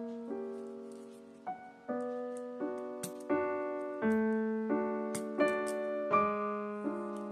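Background piano music: gentle chords struck about every three-quarters of a second, each note dying away.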